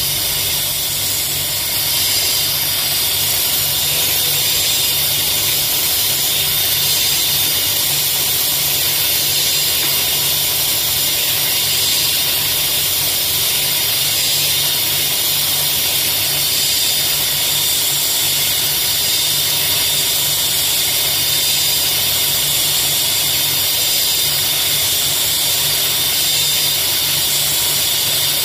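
Steady, even hiss with a low hum beneath it from a diamond laser cutting machine at work on a CVD diamond tool.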